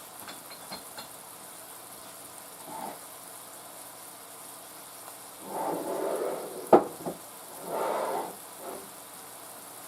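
Food sizzling faintly in a skillet over low heat, with two short bursts of scraping or stirring about halfway through and a sharp knock between them.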